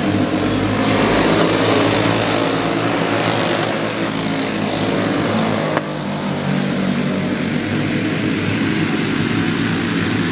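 A pack of dirt-oval racing go-karts running around the track, several small engines sounding at once, loudest in the first few seconds as the karts come by.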